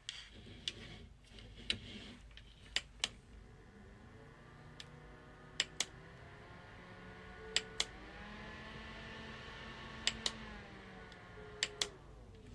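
Battery desk fan's push button clicked several times, each press a quick double click, while the small fan motor hums; the hum rises in pitch as the fan steps up through its speeds, holds, then falls away as it slows down near the end.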